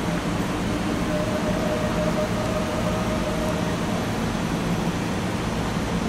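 Steady rushing background noise of a large indoor arena, like ventilation or air handling, with no distinct events. A faint thin steady tone comes in about a second in and lasts a couple of seconds.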